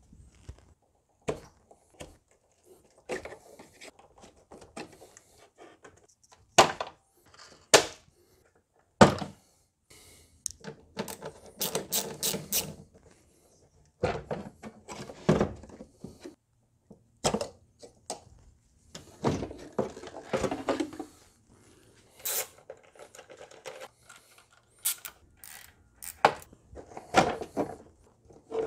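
Plastic engine-bay covers and air-intake parts being unclipped and handled: irregular plastic clicks, knocks and rattles, with the loudest few sharp knocks coming about six to nine seconds in.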